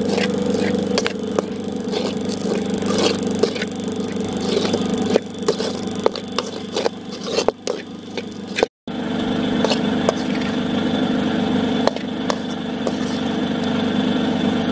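Metal ladle scraping and knocking against an aluminium kadai as grated coconut is stirred and roasted, in many short scrapes and clicks, over a steady engine-like hum. The sound breaks off for a moment a little past the middle.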